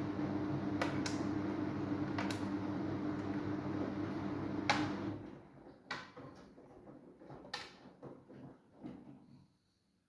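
Samsung washing machine running with a steady motor hum and a few sharp clicks. About five seconds in the hum stops, leaving scattered knocks and rustles that die away to silence near the end.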